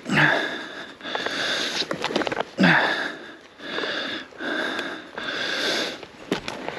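A rider's heavy, rapid breathing from exertion, about one breath a second, with a couple of short grunts.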